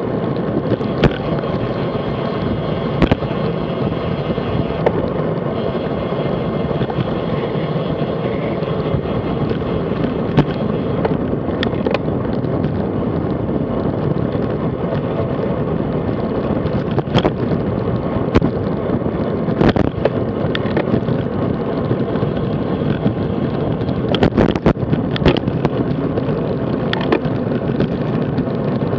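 Steady rushing wind noise on the microphone and tyre-on-road noise from a road bike riding at about 30–40 km/h, with scattered sharp clicks and knocks from the bike and camera mount over the road surface.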